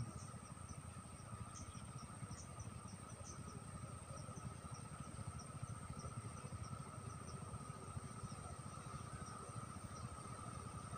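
Outdoor insect chorus: a steady, even drone at one pitch, with faint short high chirps scattered through it, over a low background rumble.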